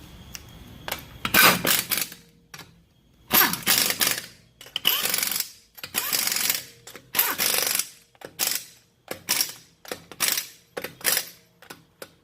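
Impact wrench hammering in about a dozen short bursts, each under a second, separated by brief pauses.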